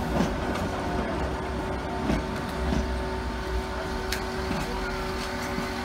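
Vintage Sóller tram cars rolling past close by: a steady low rumble with a constant hum and a few sharp clicks from the wheels on the rails.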